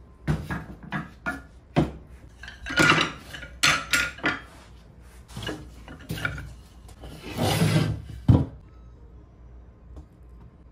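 Loose wooden chair parts, turned spindles among them, knocking and clattering together on a work table as they are handled and sorted. There are a series of sharp knocks and a couple of longer sliding rattles, with the loudest knock just after 8 seconds.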